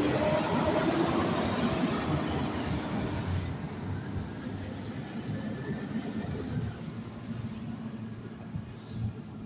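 Garbage truck's diesel engine running as the truck pulls past and drives away, loudest at first and then fading.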